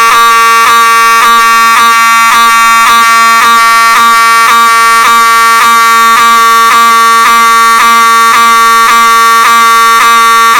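Fire alarm going off, very loud: a steady-pitched electronic tone that pulses evenly about three times a second, without a break.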